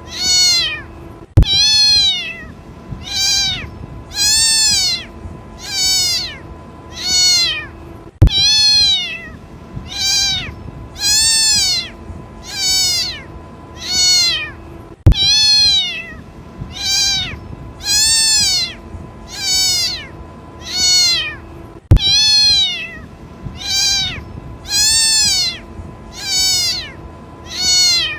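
A kitten crying for its mother: high, repeated meows, each rising then falling in pitch, about one every second and a half. A sharp click cuts in about every seven seconds and is the loudest thing heard.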